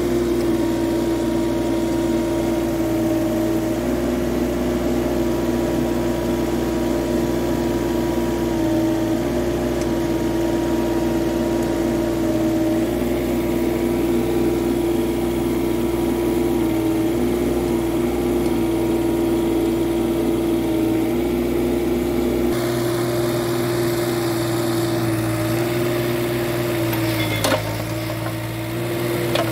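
Kubota U-15 mini excavator's three-cylinder diesel engine running steadily as the machine tracks across mud, its pitch stepping slightly up and down as the hydraulics take load. A single sharp knock near the end.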